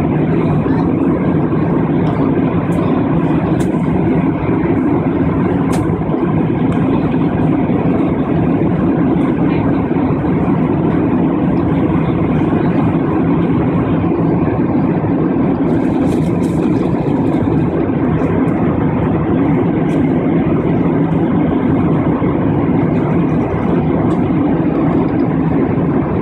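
Steady drone of jet engines and rushing air heard inside an airliner cabin in flight, unbroken and even.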